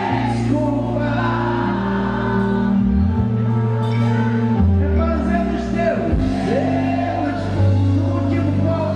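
A woman singing a samba song live into a microphone over a band, with steady sustained bass notes underneath.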